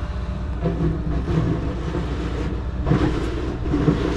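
A machine engine running steadily, a continuous low rumble.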